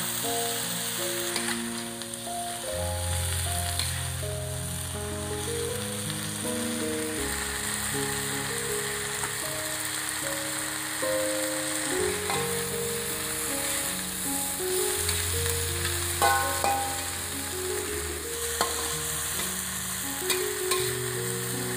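Water spinach stir-frying in a metal wok: a steady sizzle with the metal spatula scraping and tossing the greens, and a few sharp clinks against the pan late on. Soft music plays underneath.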